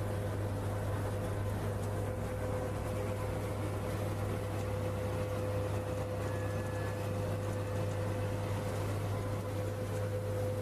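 Steady low machine hum with a constant mid-pitched tone over an even background noise.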